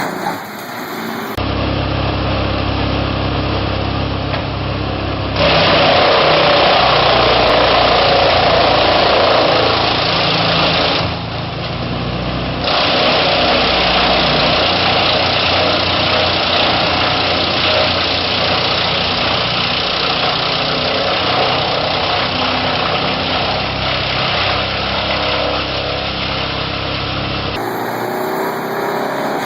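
Large wood chipper running: a steady engine hum under a loud rushing, grinding noise that swells about five seconds in, eases off briefly near the middle, then comes back.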